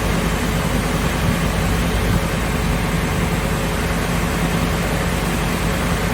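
SCM Sandya 3S wide-belt sander running steadily, a steady hum under an even rushing noise.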